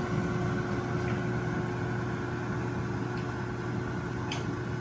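Countertop air fryer running mid-cook: a steady fan hum with a constant tone. A faint click near the end.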